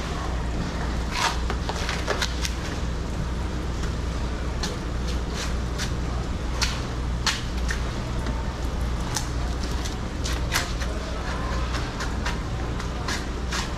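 A large knife working through a giant bluefin tuna, giving irregular sharp clicks and knocks as the blade meets bone and the wooden board. A steady low machine hum runs underneath.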